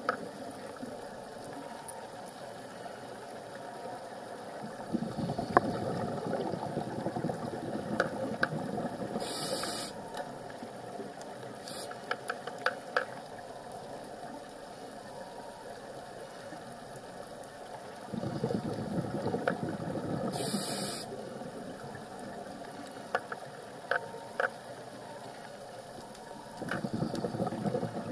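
Scuba diver breathing through a regulator, heard underwater: stretches of bubbling exhalation every several seconds, alternating with short inhalation hisses, over scattered sharp clicks of the reef.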